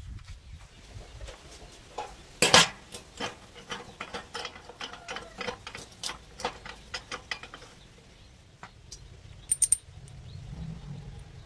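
A run of irregular sharp clicks and knocks, with one louder knock about two and a half seconds in, dying away after about seven and a half seconds.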